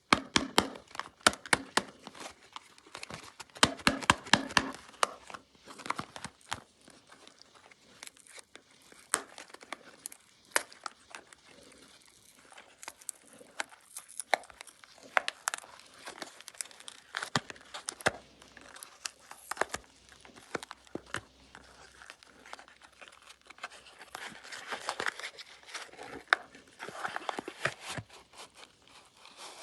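Packaging around soaps being crinkled and torn open by hand, with many quick crackles and sharp clicks, busiest in the first few seconds and again near the end.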